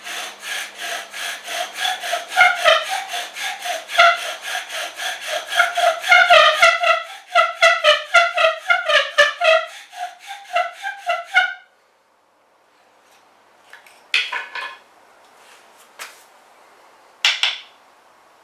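Bow drill in use: the wooden spindle squeaking and grinding in the hearth board with rapid back-and-forth bow strokes, about four a second, as friction works up an ember. The strokes stop abruptly about two-thirds of the way through, and a few short knocks follow near the end.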